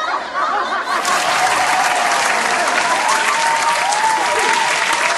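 Laughter, then from about a second in a crowd clapping steadily, with a few voices calling out over it.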